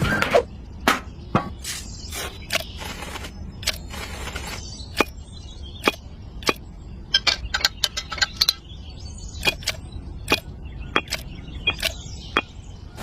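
Irregular sharp clicks and taps, some thirty of them at uneven spacing, over a faint low steady hum.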